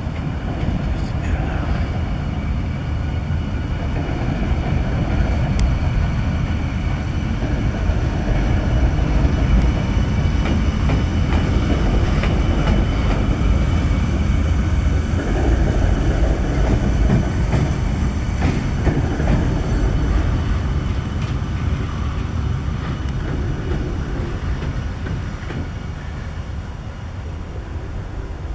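Diesel rail vehicle moving on the track during shunting, its low engine rumble and running noise swelling through the middle and easing off toward the end.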